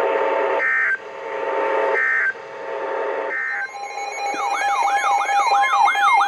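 Three short bursts of Emergency Alert System SAME data tones, about 1.3 s apart, over radio hiss: the end-of-message code that closes a weather radio warning. About four seconds in, a siren-like alert tone starts, a rising sweep repeating about twice a second over a steady tone.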